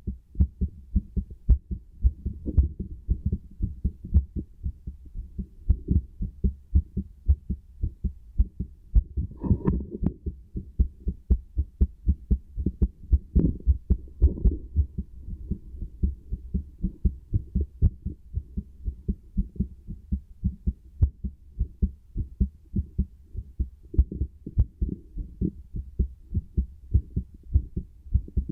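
Human heartbeat heard through a stethoscope: a steady, regular train of low thumps. About a third of the way in there is a brief scuffing noise over the beats.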